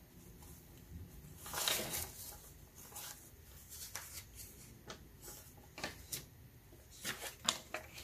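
Paper banknotes rustling as cash is handled over a plastic binder envelope. There is a louder rustle about two seconds in and a run of light crinkles and clicks near the end.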